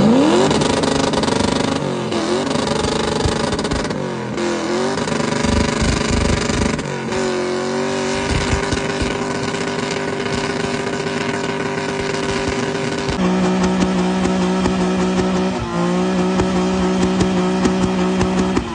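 Tuned Japanese sports car engine running hard: the revs climb sharply at the start, dip and pick up twice, then hold steady at high revs, with a brief break about three-quarters of the way through.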